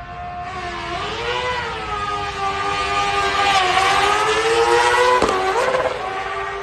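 A racing sidecar outfit's engine revving hard as it pulls away from the start, its pitch rising and dipping through gear changes and growing loudest about four to five seconds in. A sharp crack comes about five seconds in, then the engine fades away down the road.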